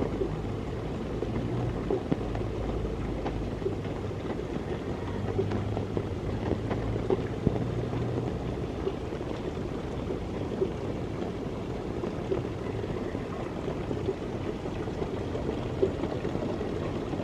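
Steady rain falling, with many small drop taps scattered through it. A low steady hum runs underneath through roughly the first half.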